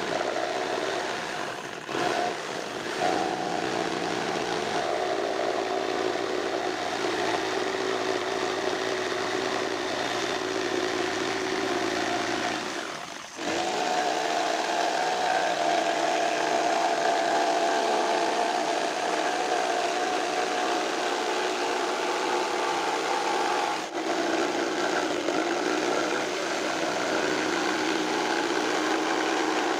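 Electric power tool running steadily under load, probably working wood, with short breaks about 2, 13 and 24 seconds in.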